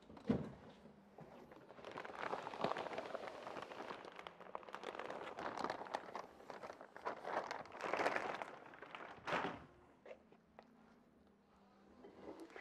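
Clear plastic wrapping rustling and crinkling as it is pulled up and off a floor-standing loudspeaker, in several louder swells, dying down near the end. There is a sharp knock just after the start.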